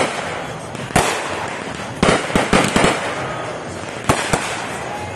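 Fireworks going off: a sharp bang at the start, another about a second in, a quick run of cracks between two and three seconds, and two more bangs a little after four seconds, over a steady crackling haze, with a faint whistle in the middle.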